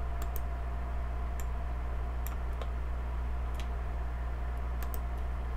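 Computer mouse clicking, a dozen or so sharp clicks at irregular intervals, over a steady low electrical hum.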